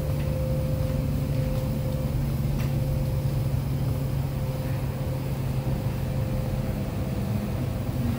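Steady low mechanical hum with a thin, even whine above it, from the store's refrigerated beer coolers running.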